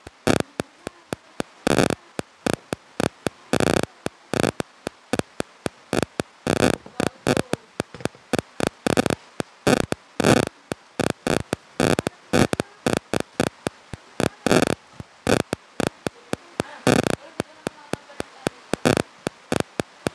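Plastic bags crinkling and crackling as they are handled, in dense irregular snaps several times a second, some longer rustles among short sharp ones.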